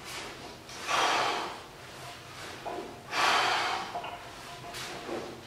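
A man breathing hard through the effort of heavy barbell curl reps: two loud, forceful breaths, about a second in and again about three seconds in.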